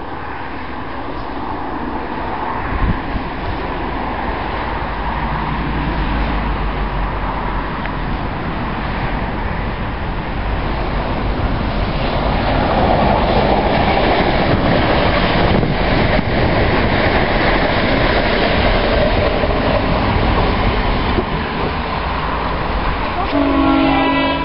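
Passenger train passing on the main line: a continuous rumble and wheel noise that builds over the first half and stays loud, with wheels clicking over rail joints in the middle.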